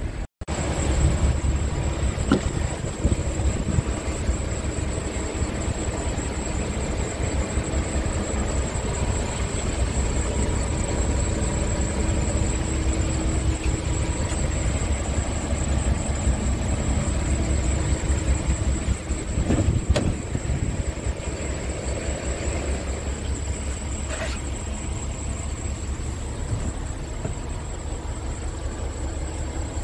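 Scania R truck's diesel engine idling, a steady low rumble heard from inside the cab, with a thin steady high-pitched whine over it. A couple of faint knocks come about two-thirds of the way through.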